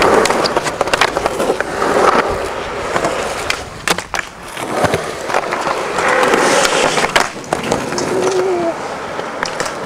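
Skateboard wheels rolling with a rushing sound that swells and fades, broken by several sharp clacks of the board hitting the ground.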